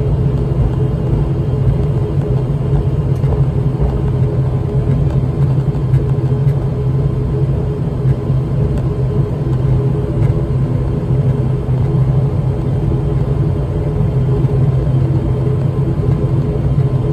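ATR 42-500's Pratt & Whitney PW127 turboprop engine and propeller droning steadily at taxi power, heard from inside the passenger cabin. The drone is low and even, with a steady hum above it.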